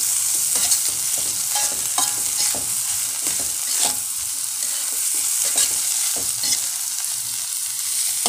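Scrambled egg with chopped spring onion sizzling in oil in a metal wok, with a spatula scraping and knocking against the pan at irregular moments as it stirs.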